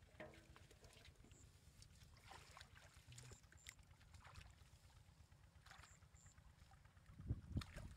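Faint sloshing and splashing of shallow muddy water as a person wades and works a bamboo basket in it, with scattered small splashes and a few louder low thumps near the end.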